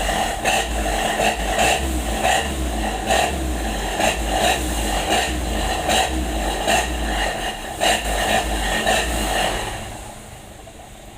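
Toyota Kijang Grand engine running through a growling Suos aftermarket exhaust, a deep rumble with regular surges somewhat more than once a second. It fades away near the end.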